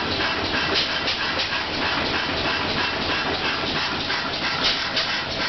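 Cooper-Bessemer double-acting natural gas pumping engine running, a steady hissing noise with a regular rhythmic beat from its strokes.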